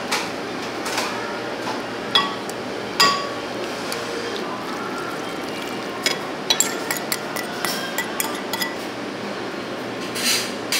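Metal kitchen utensils clinking against ceramic noodle bowls: a few sharp ringing clinks, then a quick run of clinks in the second half, over steady background noise.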